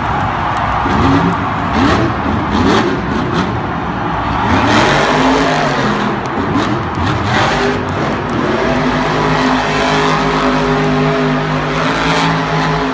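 Monster truck's supercharged V8 engine revving hard up and down through freestyle wheelies, then settling into a steadier held note about two-thirds of the way in.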